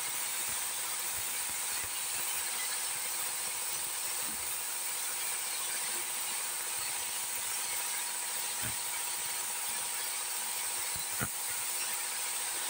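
Compressed air hissing steadily through a gravity-feed spray gun as top coat is sprayed, with one sharp click near the end.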